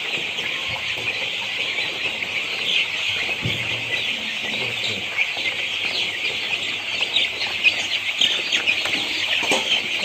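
A large flock of ten-day-old broiler parent-stock chicks peeping all at once: a dense, steady chorus of many overlapping high cheeps.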